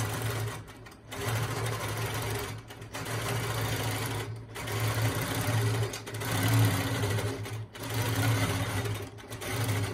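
Stitch-regulated free-motion quilting machine stitching in a steady run, stopping briefly about every one and a half seconds as the needle pauses at the points of the petals.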